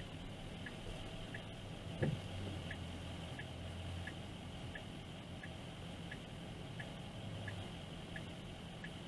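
Turn-signal indicator ticking evenly, about one and a half ticks a second, in the cabin of a stopped car with a low engine hum; a single thump about two seconds in.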